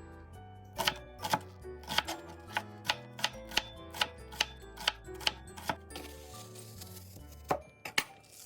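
Soft background music with a run of sharp taps, about two to three a second, starting about a second in and stopping around six seconds, then two more taps near the end.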